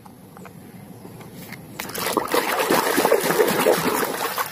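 A muddy toy truck being plunged and swished about in a tub of water: splashing and sloshing that starts about two seconds in, after a few faint clicks.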